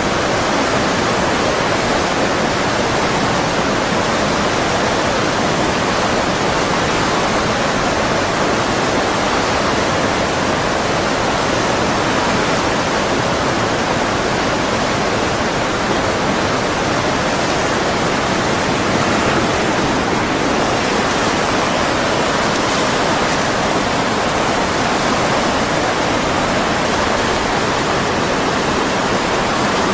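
Tsunami floodwater rushing: a loud, steady rush of noise without let-up.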